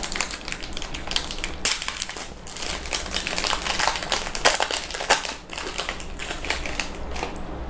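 Shiny foil-lined plastic wrapper of a Beng Beng chocolate wafer bar being torn and peeled open by hand, a dense run of crinkling and crackling with a few sharper snaps, loudest about four to five seconds in.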